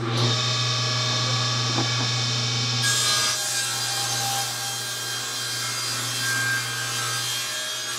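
Table saw starting up and ripping a 2x8 board lengthwise into a narrow strip. A steady motor hum runs under the whine of the blade, and the cutting noise grows brighter about three seconds in as the blade bites fully into the wood.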